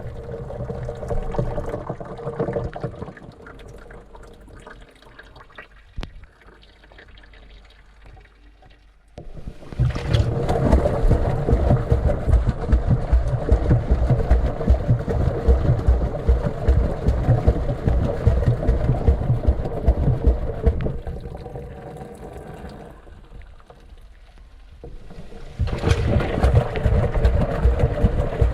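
Washing machine wash cycle heard from inside the drum: the load churns and water sloshes over a steady motor hum. The drum stops for several seconds a few seconds in, starts again about nine seconds in, winds down again past the middle, then starts once more near the end.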